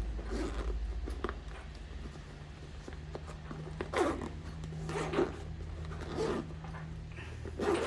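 Zipper slider being run along a travel bag's zipper in several short rasping strokes, over a steady low hum.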